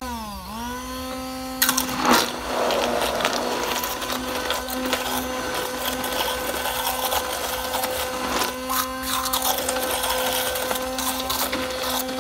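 Hamilton Beach immersion blender motor switched on and spinning up to a steady whine. About a second and a half in it is plunged into the liquid soap mixture and runs on, churning and splashing in the plastic tub with occasional knocks.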